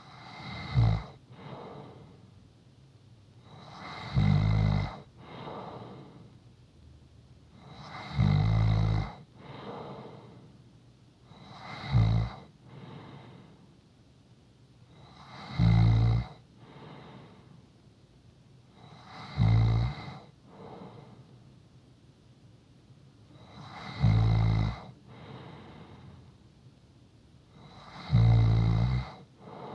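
A person snoring steadily: eight snores about four seconds apart, each followed by a quieter breath.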